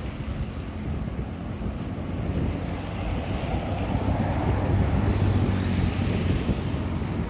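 Wind rushing over the microphone of a bicycle-mounted camera while riding at speed, a steady low rumble that swells somewhat in the middle.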